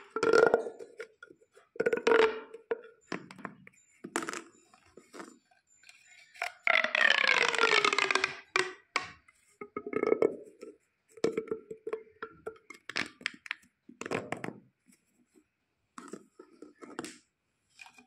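Plastic pop tubes (corrugated stretch tubes) being stretched and bent by hand, their ribs popping open and shut in short, croaky bursts. About seven seconds in, one longer pull gives a run of about two seconds that falls in pitch.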